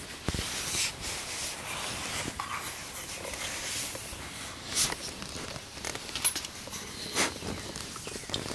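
Wooden box turkey call being stroked, giving a run of irregular, raspy scraping calls, mixed with the rustle of camouflage fabric and the camera being handled.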